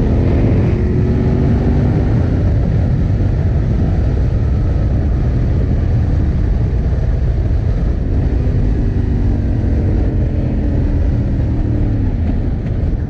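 Yamaha Ténéré 700 parallel-twin engine running at riding speed under a heavy low wind rumble on the microphone. The engine pitch drifts gently and dips briefly near the end.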